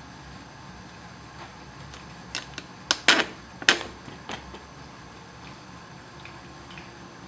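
Water Blaster HY 10000 pump running quietly with a steady low hum, on its first run with air still working out of it. About two seconds in comes a short cluster of sharp clicks and knocks, the loudest near the three- and four-second marks.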